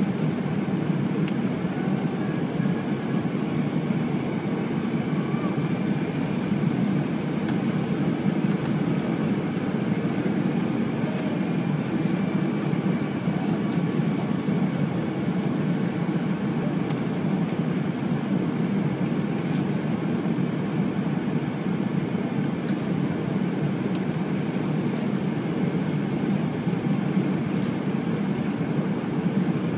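Steady cabin noise inside an Airbus A320 airliner in flight on its approach: an even, low rush of airflow and engine hum, heard from a seat near the front of the cabin.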